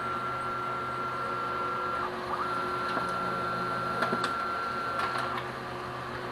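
Brother DCP-L2500D laser multifunction printer making a copy. A steady motor whine from the scanner and feed mechanism breaks off about two seconds in, starts again, and stops about five seconds in. A steady low hum and a few light clicks sound under it. The scan bar travels normally, without knocking.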